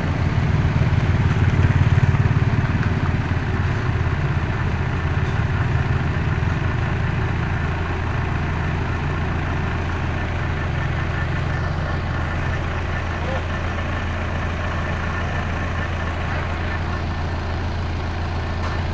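Heavy diesel engine of earthmoving machinery running: louder for the first few seconds, then settling to a steady idle.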